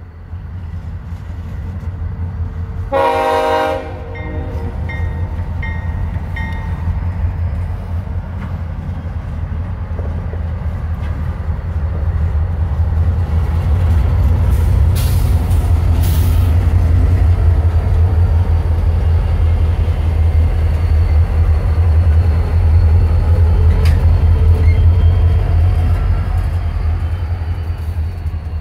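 CSX freight train's diesel locomotives approaching and passing close, their low engine rumble building to its loudest as they go by. One short horn blast sounds about three seconds in.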